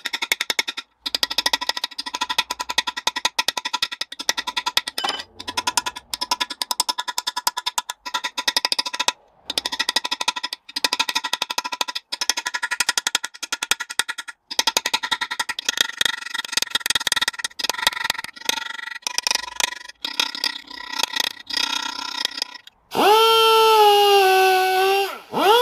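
Air chisel hammering rapidly at a seized aluminium core plug in a cast-iron Land Rover 2.25 petrol engine block, with a few short pauses, and the block ringing at steady pitches with each blow. Near the end a die grinder starts with a loud steady high whine that dips briefly as it bites into the plug.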